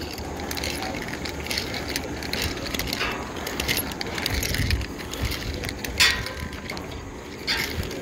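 Metal climbing gear clinking and clanking in irregular clicks, with one sharp clack about six seconds in, over a steady low rumble.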